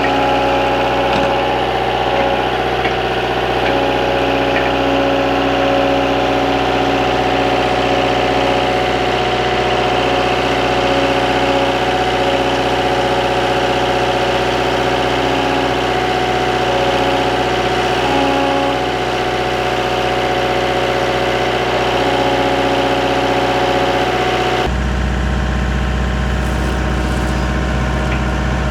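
Skid steer engine running steadily, with a low, even engine tone; near the end the sound changes abruptly to a deeper, heavier running note.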